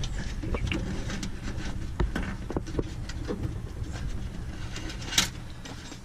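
Handling noise from wiring being pulled through a grommet in plastic trim: scattered light clicks and knocks over a low rumble, with one sharper click about five seconds in.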